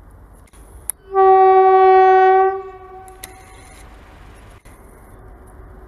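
Horn of an Indian Railways WCAM-3 electric locomotive sounding one steady blast of about a second and a half, starting about a second in, as the train approaches. The train's low rumble continues underneath.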